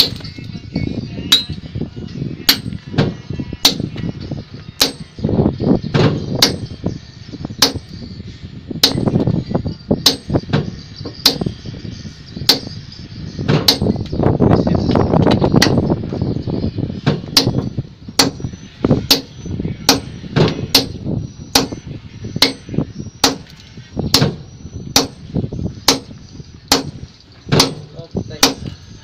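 Sledgehammers striking a long-handled steel chisel held against a pile, in sharp metallic blows about one and a half a second, steady throughout. A louder low rumble builds up about halfway through.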